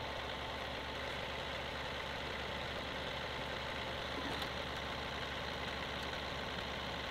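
John Deere 2038R compact tractor's three-cylinder diesel engine idling steadily.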